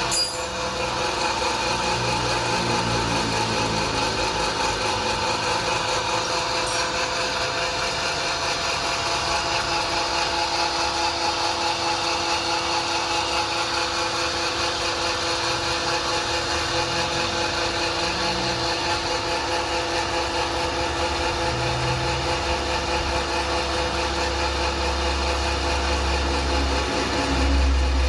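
Electric 5.5 hp animal-feed pellet mill running steadily, its motor and die making a constant hum with several steady tones. A deeper low rumble swells near the end.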